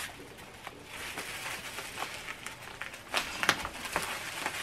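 Plastic bubble wrap rustling and crinkling as it is handled, with a few sharper crackles a little past the middle.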